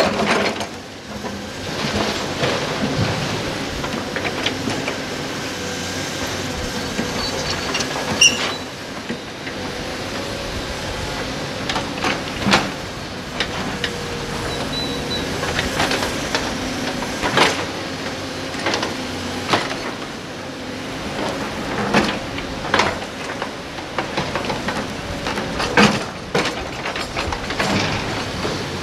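Caterpillar 320D hydraulic excavator digging into a pile of large rocks: its diesel engine and hydraulics run steadily, with a sharp knock or clank of rock against the steel bucket every few seconds.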